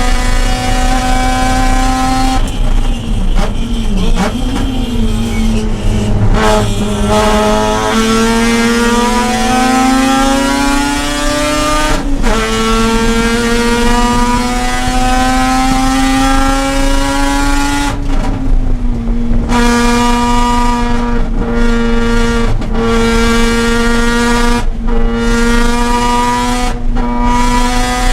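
Mazda RX-8's twin-rotor Wankel rotary engine under race load on track. Early on the revs dip and wobble, then climb slowly for about ten seconds. The sound breaks off briefly about two-thirds through, then holds high revs with several short lifts.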